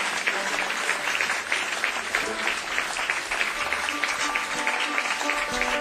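Concert audience applauding steadily, with a few faint held instrument notes coming in beneath the clapping about halfway through.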